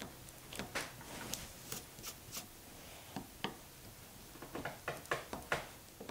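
Bench chisel paring a Douglas fir post: a run of short, irregular slicing and scraping strokes with small sharp ticks as the edge cuts through the wood fibres.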